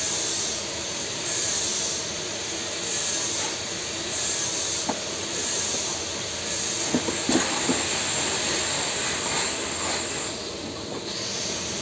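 Steady hissing and humming noise of a TIG pipe-welding work area, with a high hiss that pulses a little more than once a second and a few light knocks in the second half.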